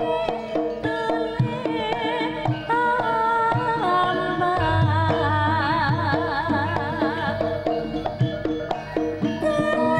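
Background music: held melodic notes over light percussion, with a melody that wavers in pitch over a low drone through the middle.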